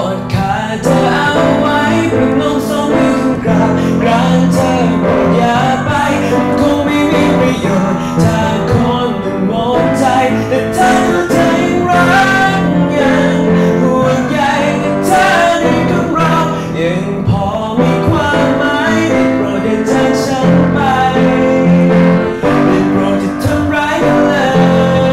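A man singing the chorus of a ballad with piano accompaniment, pushing up into high notes. The high notes sound a little forced and strained, the kind of throat and jaw tension that keeps the vocal folds from working fully.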